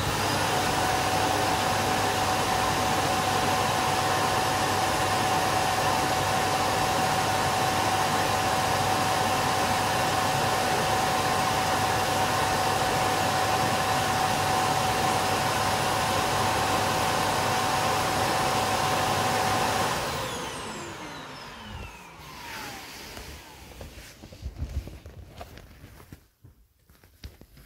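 Ecovacs Deebot OZMO T8+ auto-empty station's suction motor starting abruptly and running loud and steady with a high whine, emptying the docked robot's dustbin into the station. About twenty seconds in it shuts off and spins down with a falling whine, followed by a few faint knocks.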